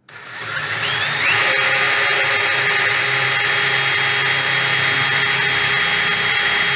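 DeWalt cordless drill boring a knob hole through a cabinet door: the motor whine rises as it spins up over the first second or so, then holds steady at full speed.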